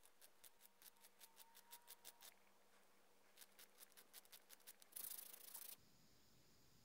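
Faint rasping of a small wooden wheel rubbed back and forth on an emery-board sanding stick, in quick strokes about five a second. The strokes pause about two seconds in, start again, and end in a short, louder burst of fast scrubbing near the end.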